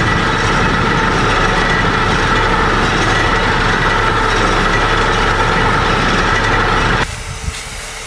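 Forest-fire tanker truck's engine running steadily while pumping water out to the hose line: a low drone with a steady high whine over it. It cuts off abruptly about seven seconds in.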